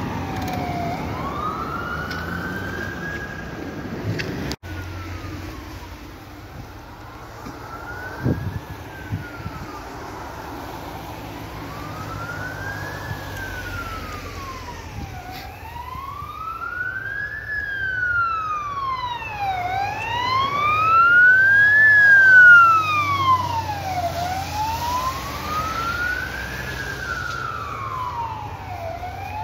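Fire engine sirens wailing, each sweeping slowly up and down about once every four to five seconds. One truck's siren fades as it drives away and breaks off about four seconds in; a second fire engine's siren then grows louder as it approaches, loudest about 22 seconds in, over a low engine and road rumble.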